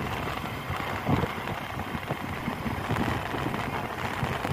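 Engine and road noise of a moving vehicle, a steady rush with uneven low rumbling.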